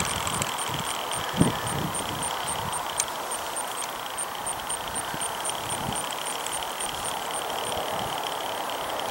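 Distant radio-control model airplane's motor, a steady high whine as it flies overhead, with a rapid even high ticking, about four to five a second, and wind noise. A dull thump about a second and a half in.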